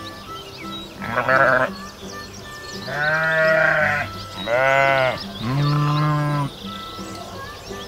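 Sheep bleating four times, each call lasting under a second, over soft background music.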